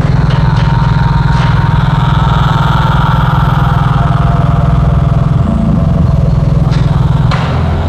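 Low, loud held organ chords in a sustained drone, shifting to new notes about five and a half seconds in and again near the end, over a hissing background.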